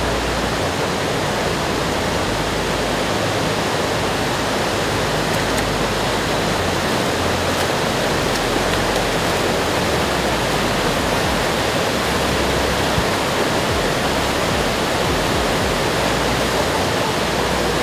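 Steady rush of whitewater from river rapids and a waterfall, even in level throughout.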